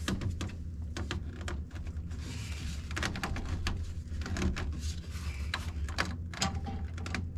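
Scattered clicks and knocks of plastic drain pipe and fittings being handled and adjusted during a dry fit, over a steady low hum.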